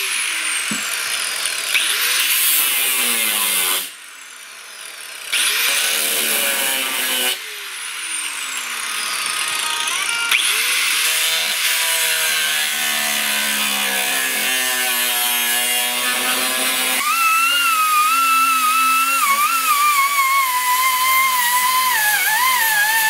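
Angle grinder cutting steel in the car's engine bay to widen a notch for engine-pulley clearance. It stops and restarts a couple of times in the first seven seconds, its whine falling as the disc slows, then runs on in a long cut with a wavering whine.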